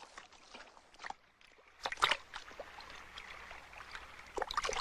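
Water splashing and sloshing as dogs swim through the sea, with a sharp louder splash about two seconds in.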